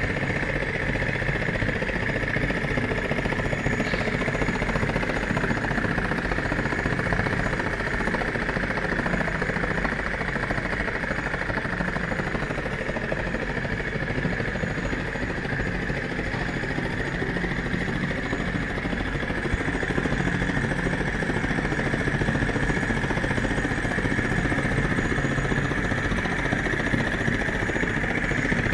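Miniature flame-eater (vacuum) engine running steadily at speed, a fast, even mechanical chatter with a constant whir.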